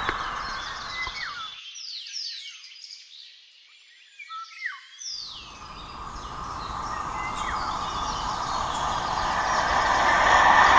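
The rumble of a receding passenger train fades out. Birds chirp with short, high, falling calls. From about halfway, an electric-locomotive-hauled passenger train, an EU07-family locomotive with coaches, approaches, and the rumble of its wheels on the rails grows steadily louder toward the end.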